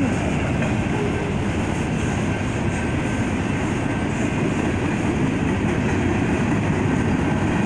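Freight train cars rolling past, autoracks and then covered hoppers: a steady rumble of steel wheels on the rails.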